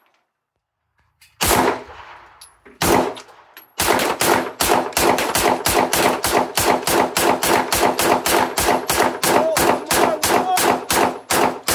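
Pistol fitted with a drum magazine firing: two single shots about a second and a half apart, then a long, even run of rapid shots at about three or four a second.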